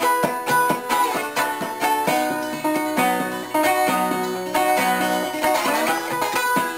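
Background music: a plucked-string instrumental with a quick run of picked notes.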